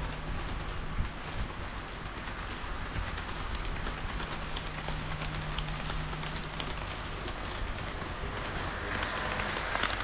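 HO-scale model train of red KiHa 40 and KiHa 58 railcars running on sectional track: a steady rolling rumble with a low motor hum that comes and goes. Faint clicks from the wheels over the rail joints grow more frequent and louder near the end as the cars pass close by.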